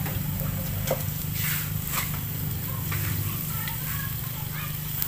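A few sharp clicks of chopsticks against a bowl and a metal pot, over a steady low hum.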